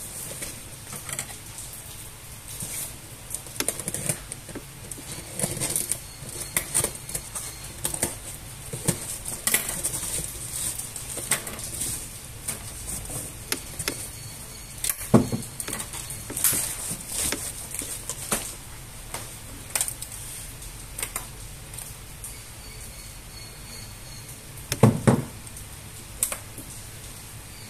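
Crackling and rustling of packing tape, plastic wrap and a cardboard box being torn open and handled, with many small irregular clicks. Two louder knocks, one about halfway through and one near the end, as the gear motor is set down on the wooden desk.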